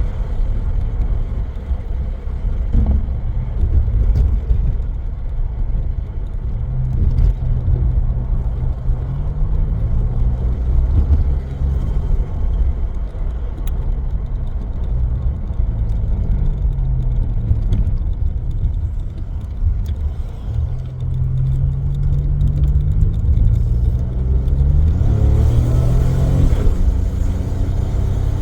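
Turbocharged V6 Holden Commodore engine pulling hard, its revs climbing and dropping several times as it goes through the gears. Its wastegate screamer pipe is plumbed into the dump pipe.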